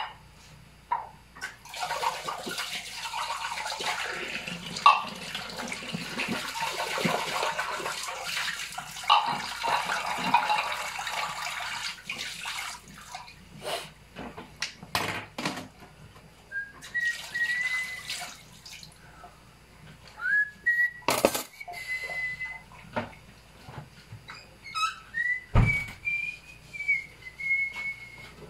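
Tap water running into a kitchen sink for about ten seconds, with light clatter. Then a person whistles a wandering tune in short phrases, with a sharp knock and a low thump in between.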